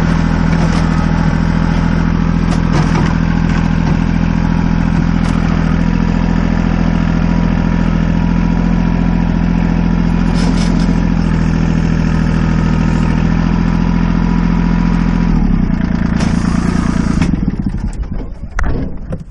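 Tractor engine running steadily, heard from the operator's seat while spreading gravel with the front-end loader, with a few short clanks. Near the end the engine note changes and then drops away sharply.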